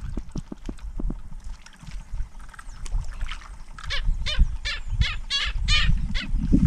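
Animal calls: a quick run of low pulses in the first second, then a series of short, harsh calls repeated about three times a second, over a steady low rumble.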